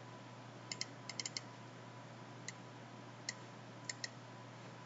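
Faint, scattered clicks of a computer mouse: a quick run of clicks about a second in, then single clicks spread apart, over a steady low hum.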